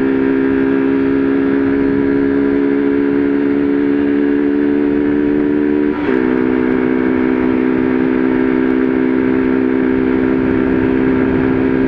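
Honda Fan 125's single-cylinder four-stroke engine running at steady high revs at speed, its intake open with the air filter removed, with wind rushing over the microphone. The engine note breaks briefly about halfway through and then carries on at much the same pitch.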